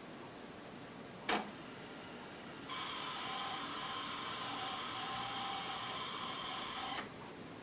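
Pioneer CT-M6R six-cassette changer at work: one sharp mechanical click, then a steady hiss for about four seconds that cuts off suddenly.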